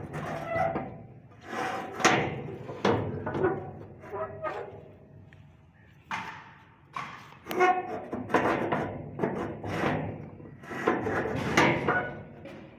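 Hammer blows on brick and plaster, chipping out a hole in the wall beside a steel gate frame: uneven knocks about one or two a second, some with a short metallic ring.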